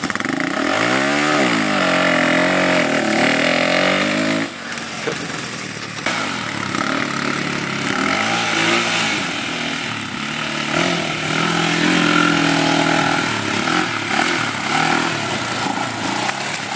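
Honda TRX400EX quad's single-cylinder four-stroke engine revving up and down over and over as it is ridden hard, with a brief break about four and a half seconds in.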